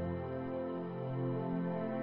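Background music: calm new-age ambient instrumental with sustained tones.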